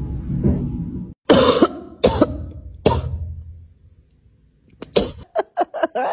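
Coughing: a loud sudden cough about a second in that fades out, two smaller ones after it, then a run of short sharp bursts near the end, over a low steady rumble at the start.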